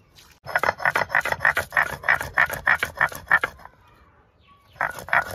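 Stone roller rocked and pressed over a stone grinding slab (shil-nora), crushing onion, garlic, ginger and chillies into paste: a rhythmic rasping crunch at about four strokes a second. The strokes stop for about a second and start again near the end.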